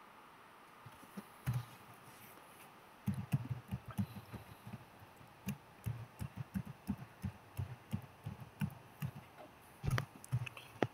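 Computer keyboard keys being pressed in an irregular run of several short clicky thumps a second, typing a login password. One keystroke comes about a second and a half in, the run starts about three seconds in, and it ends with a couple of heavier presses near the end.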